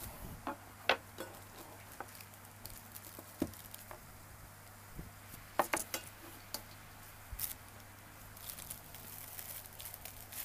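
Handling of a round metal watch tin and its contents: scattered light knocks and clinks as the lid comes off and things are set down on a wooden table, then crinkling of the plastic bag around the watch near the end.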